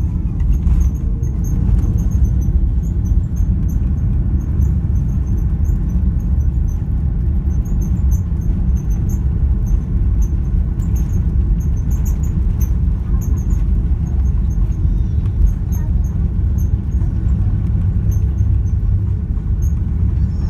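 Airbus A330-300 cabin noise: a steady low rumble of the engines and airflow, with faint, intermittent high-pitched chirps over it.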